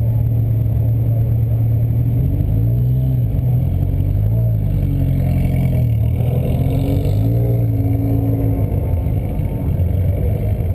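Nissan Nismo car's engine under load during a track lap, heard from inside the cabin. Its pitch holds steady at first, then drops and climbs several times through gear changes and corners in the middle, then holds steady again near the end.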